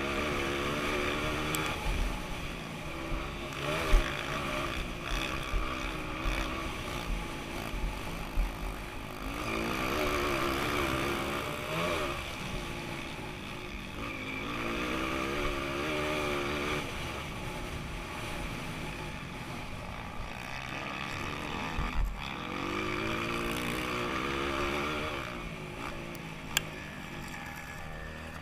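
Modified Honda CRF230 dirt bike's air-cooled single-cylinder four-stroke engine under hard riding, its revs repeatedly climbing and dropping through the gears. A few sharp knocks stand out, about 4 seconds in and twice near the end.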